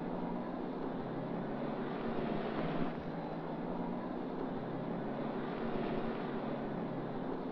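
Steady rumble of city traffic.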